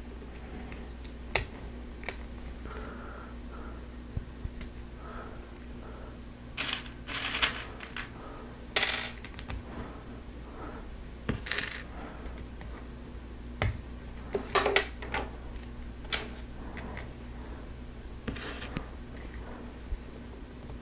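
Small Lego Technic plastic parts clicking and rattling as they are handled and pressed together by hand: scattered sharp clicks and short bursts of scraping clatter.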